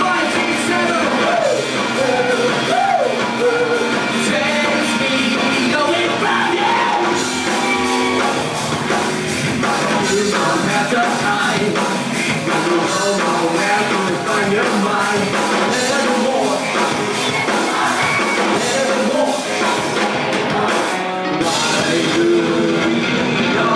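Rock band playing live, with a singer over a full band.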